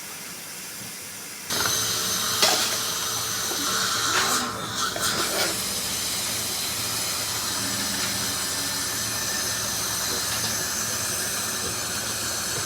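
Steady hiss of dental equipment during a teeth cleaning, switching on abruptly about a second and a half in, with a few short clicks over the next few seconds.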